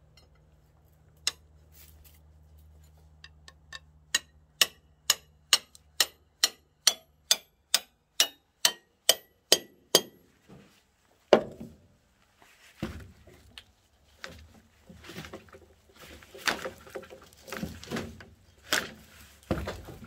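Rusty metal rod struck against something hard in a steady run of sharp, ringing clinks, about two a second for some six seconds, followed by one louder knock and then irregular knocks and scraping.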